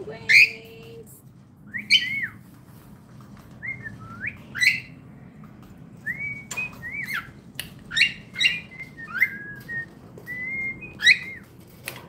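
Cockatiel whistling a series of short notes that slide up and down, with sharp clicks in between.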